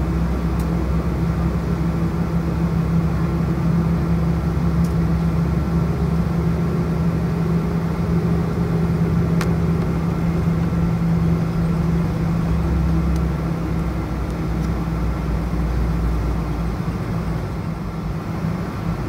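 Cabin noise inside a Boeing 777-200ER taxiing: a steady jet-engine drone with a constant low hum and rumble.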